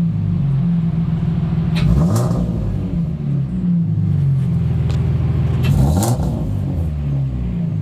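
C5 Audi 3.0 V6 engine running, revved up and let fall back twice, about two seconds in and again about six seconds in. The engine runs smoothly with a new fan controller module fitted.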